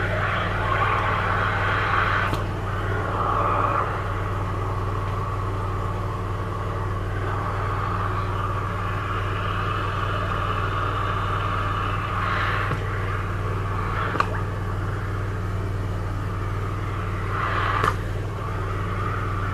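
Hydro-jetting drain cleaner running steadily, a constant pump hum under the hiss of the high-pressure water jet as the jetting hose is pushed into a blocked floor-trap drain line, where it is hard to get through. A few sharp knocks, the last two the loudest.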